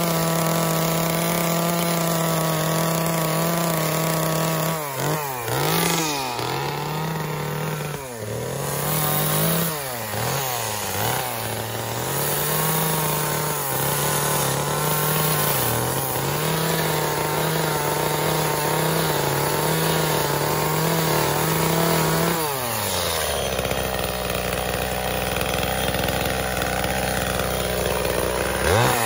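Gasoline chainsaw running at high speed while carving wood, its engine note dipping under load several times between about five and eleven seconds in. About 22 seconds in it drops to idle.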